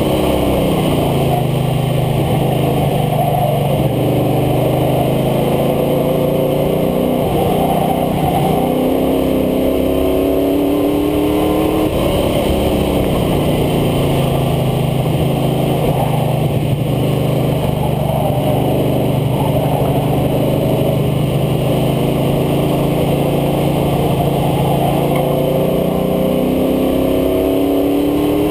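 International Harvester Scout II engine heard from the front air dam at track speed, with a steady rush of wind and road noise. The engine note drops just after the start, holds level, climbs as it accelerates about a third of the way in, holds level again, and climbs again near the end.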